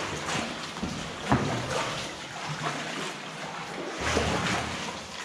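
Paddles dipping and splashing in still water as an inflatable boat is rowed, in irregular strokes about a second apart.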